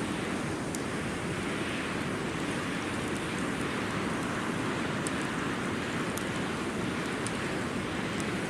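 Wood campfire crackling, with occasional sharp pops, over a steady rushing noise.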